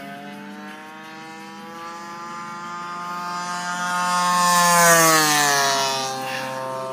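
Radio-controlled scale plane with a 36cc engine and 18x10 propeller making a fast pass: the engine drone grows louder to a peak about five seconds in, then the pitch drops as it goes by.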